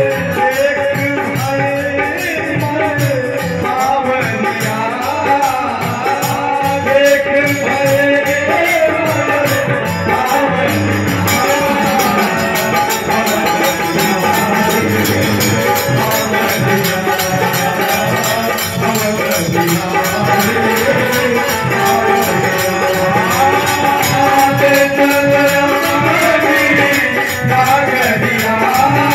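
Live Indian group music: men singing into microphones over a dholak drum, jingling hand percussion and an amplified keyed string instrument, with a steady rhythm throughout.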